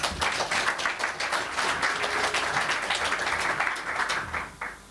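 Audience applauding: dense clapping that starts suddenly and dies away near the end.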